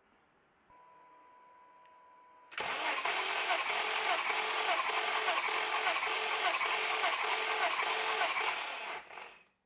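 BMW M30B34 3.4-litre straight-six being turned over by its starter with the fuel pump relay and engine computer removed, so it cranks without firing. The cranking starts about two and a half seconds in, has an even pulse about twice a second and stops near the end. This is the cranking for a cold compression test on cylinder 6, which reads 175 psi.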